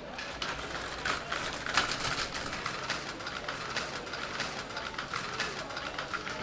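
Wheels and frame of a hand cart loaded with sacks rattling and clattering over stone paving as it is pushed along, a steady run of small knocks with one louder bump about two seconds in.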